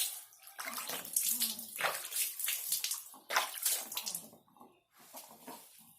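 Water splashing and wet scrubbing in irregular strokes as a clothes brush is worked over a rooster's soapy, wet head, dying down near the end.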